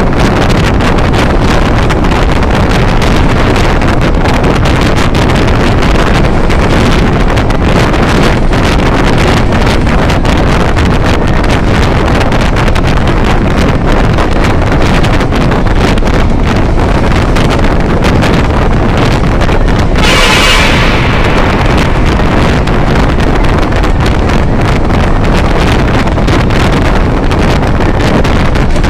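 Loud, steady wind buffeting the microphone over the road noise of a car driving fast through a road tunnel. About two-thirds of the way through, a brief louder rush swells and fades within about a second.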